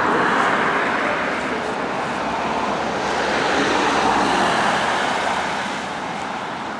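Loud road traffic noise from vehicles going by close at hand: a dense, steady rush that swells a little midway and eases off toward the end.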